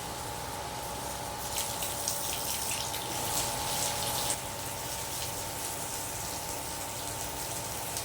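A brief burst of running water lasting a few seconds, which stops abruptly, over a steady hum.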